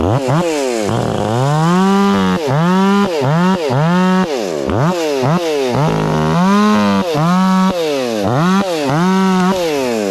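Stihl MS 500i fuel-injected two-stroke chainsaw revved hard over and over. Engine speed sweeps up, holds briefly at full speed, then drops back, over a dozen times.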